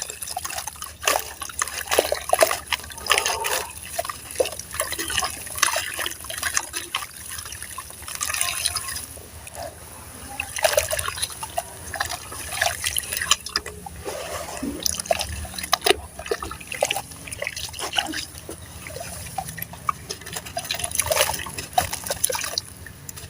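Water-soaked sand-cement slabs crumbling in a tub of water: a continuous, irregular run of wet gritty crunches and small sharp crackles, with water trickling and dripping.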